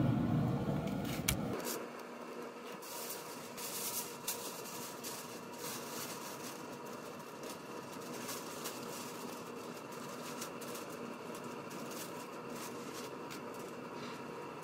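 Aluminium foil crinkling and crackling in short bursts as it is pressed down over a foil pan, over a steady low mechanical hum. A louder low rumble cuts off abruptly about a second and a half in.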